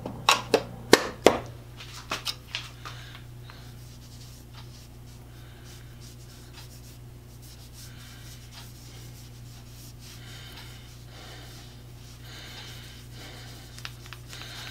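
A metal tin lid clicks and clatters a few times in the first three seconds. After that comes the soft, steady rub of a cloth wiping paste wax onto small tool parts.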